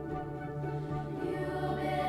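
Church music at the close of a service: a choir singing held chords, building slightly toward the end.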